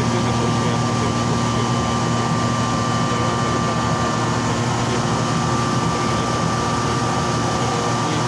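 Large thermoforming machine running with a steady, even mechanical hum and a thin, constant high whine above it.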